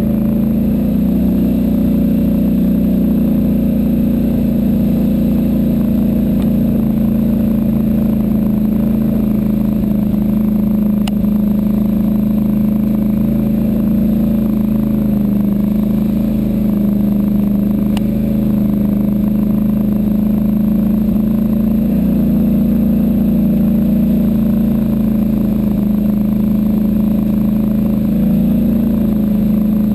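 ATV engine running steadily at an even speed while the machine rides along a dirt trail.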